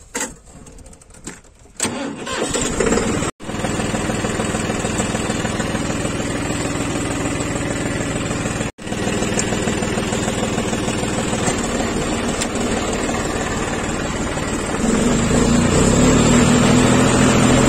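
John Deere tractor's diesel engine starting about two seconds in and then running steadily. Near the end it picks up speed and runs louder.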